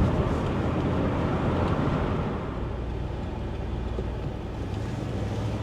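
Freshly rebuilt LS4 5.3-litre V8 of a 2006 Chevrolet Monte Carlo SS running smoothly while the car drives on the road, with a steady low engine hum and road noise, easing off slightly after about two seconds.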